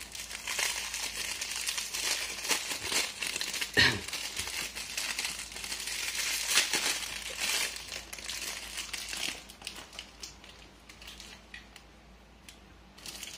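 Thin clear plastic wrapping crinkling and rustling as it is handled and pulled open by hand, with the loudest crackle about four seconds in. It dies down after about nine seconds to a few faint clicks near the end.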